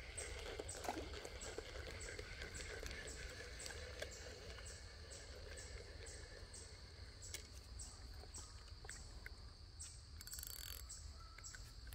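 Quiet creekside outdoor background with a faint high-pitched chirp repeating evenly about twice a second, a low steady rumble, and a brief hiss near the end.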